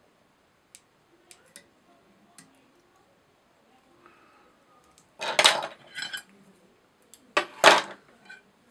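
Small metal fly-tying tools clinking and clattering as they are handled and set down: a few faint ticks at first, then two louder clatters in the second half.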